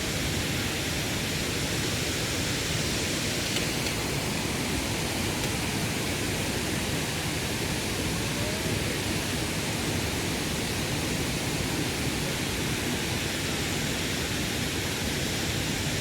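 Steady, even rushing noise without breaks or distinct events.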